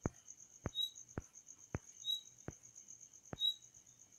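Faint insect trilling: a steady, high, pulsing note with a sharper chirp about every second and a half. Irregular dull clicks come every half second to a second.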